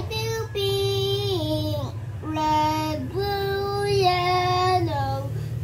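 A young child singing long held notes in a sing-song tune, several notes sliding down in pitch at their ends, over a steady low hum.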